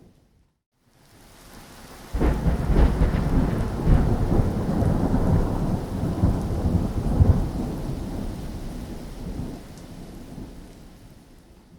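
Rainstorm with a thunderclap: after a brief moment of silence, rain hisses steadily, then about two seconds in thunder cracks sharply and rolls in a loud low rumble for several seconds before slowly fading away.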